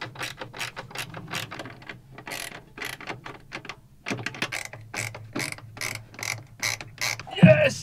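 Ratchet tool clicking in quick, even strokes, about four or five a second, while a fastener is being tightened, with a short pause about four seconds in. A brief loud vocal sound near the end.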